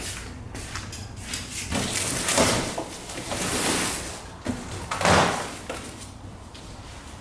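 Large cardboard shipping box being opened and its contents handled: a series of cardboard and packing scrapes and rustles, the loudest about five seconds in.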